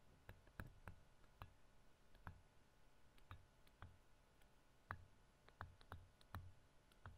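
Faint, irregular clicks and taps of a stylus striking a tablet screen while handwriting words.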